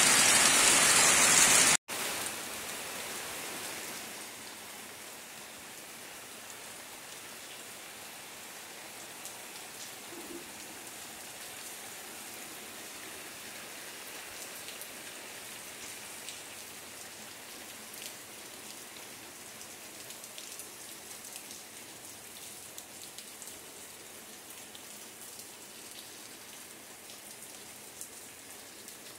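Heavy rain falling, loud at first; a couple of seconds in it cuts suddenly to a quieter, steady rain with scattered light drop ticks.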